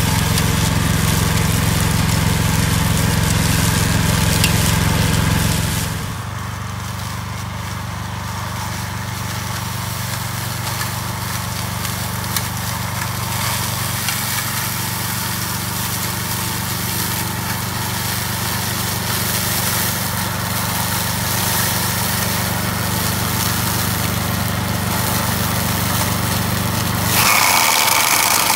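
Vezdekos TS 1000 walk-behind brush mower's engine running steadily under load while the mower cuts dry weeds and brush. The drone drops in level about six seconds in. Near the end a louder, noisier chopping sound takes over as the deck goes into tall dry stalks.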